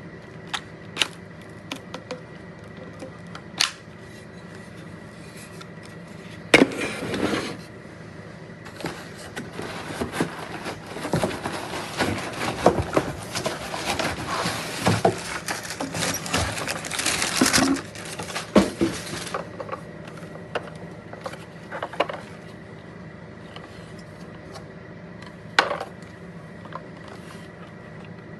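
Objects being handled in a small room: scattered sharp clicks and knocks, with a long stretch of crinkly rustling in the middle.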